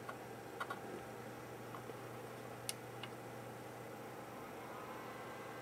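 A few light clicks from a hand on a laptop's base as it is switched on, the sharpest about two and a half seconds in, over a steady low hum.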